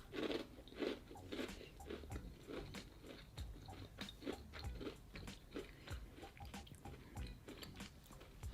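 Close-miked biting and chewing of a hard chocolate chip cookie: crisp crunches about two a second, the cookie hard and dry rather than soft.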